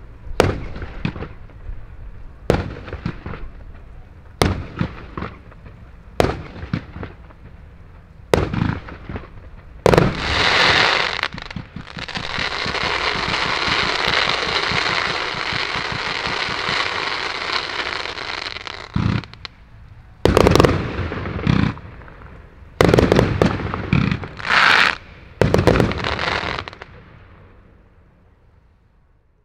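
Röder 'Lets Fetz' compound fireworks cake (146 shots, up to 30 mm calibre) firing. First come single shots with bangs about every two seconds. About ten seconds in, a dense continuous barrage runs for roughly seven seconds, then a quick run of loud bangs ends the show and the sound dies away.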